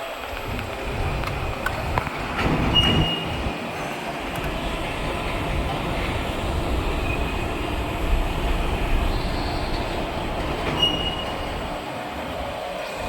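Electric welding rotator turning a heavy vessel shell on its rollers: a steady rumble with brief high metallic squeals, once about three seconds in and again near eleven seconds.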